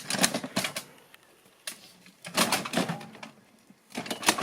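Bursts of rapid clicking and rattling, in several short clusters with quieter gaps between them.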